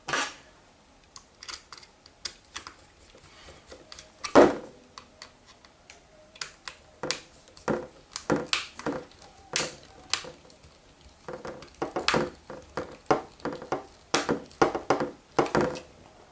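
Small plastic cover and screws being handled and screwed shut by hand: irregular sharp clicks and taps, with one loud knock about four seconds in and a busier run of clicks in the last few seconds.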